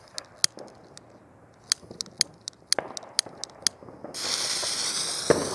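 A lighter clicking repeatedly at a firework fountain's fuse, then, about four seconds in, the fuse catching and hissing steadily. A dull thump comes about a second later.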